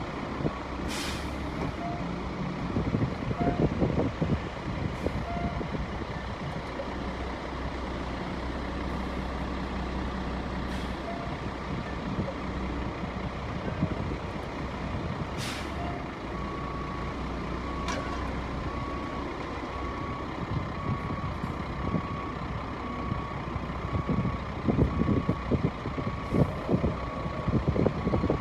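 Diesel concrete mixer truck running steadily at a job site, with two short air-brake hisses. About halfway through, a reversing alarm starts beeping about once a second and keeps on.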